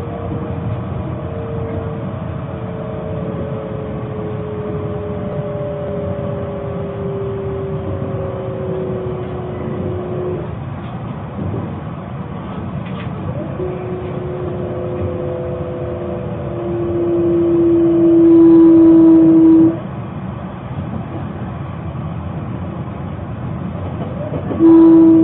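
Narita Express train running, heard from inside the passenger car: a steady rumble with a whine that slowly falls in pitch. A louder steady tone swells and cuts off suddenly about twenty seconds in, and another starts abruptly near the end.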